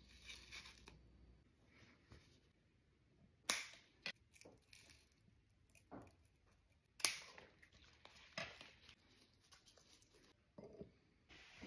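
Ribbon rustling and light handling sounds as a ribbon is wrapped and tied around a taper candle, with two sharp clicks, one about a third of the way in and one just past halfway.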